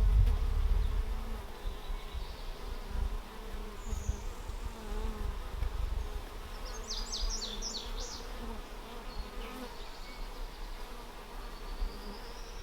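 Honey bees buzzing as many scouts fly around a swarm trap box and go in and out of it. A low rumble is loudest at the start, and a short burst of high chirps comes about seven seconds in.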